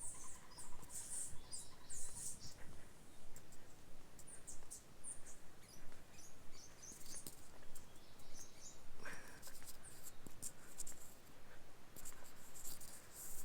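Many short, high-pitched bird chirps and whistles repeating irregularly in tropical vegetation, with close scratchy rustling and light clicks.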